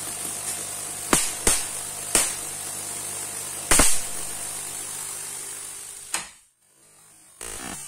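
High-voltage corona discharge from the point electrode of a 250 kV voltage doubler, hissing steadily over a mains hum. Four sharp cracks of streamer discharge come in the first four seconds, and a last crack comes about six seconds in, after which the hiss cuts off.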